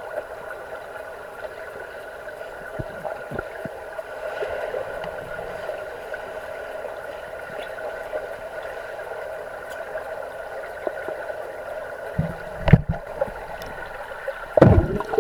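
Underwater sound of a swimming pool: a steady hum with a few faint clicks, then two loud dull thuds near the end.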